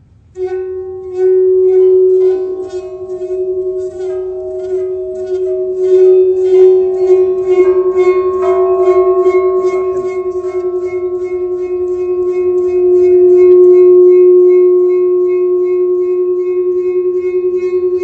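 A large round metal Chladni plate strewn with sand, rubbed at its rim so that it sings with one loud, steady tone and higher overtones that come and go. A fast regular pulsing from the rubbing runs through it. This vibration is what shakes the sand into patterns.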